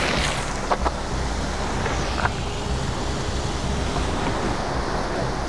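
Wind buffeting the microphone with a low rumble, over surf breaking against jetty rocks. A few sharp clicks come near the start and again a little past two seconds.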